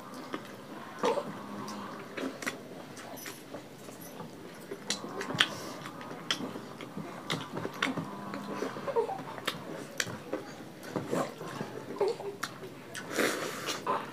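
Close-up eating sounds: people chewing and smacking mouthfuls of rice and fish curry eaten by hand, with many small sharp clicks of fingers and rice on steel plates.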